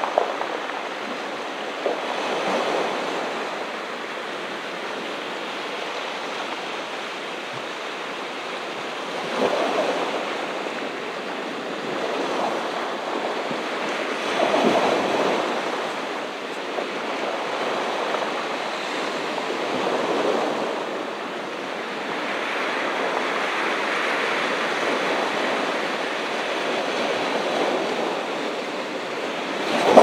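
Ocean surf washing onto a beach: a steady wash of water that swells and eases as waves break every few seconds.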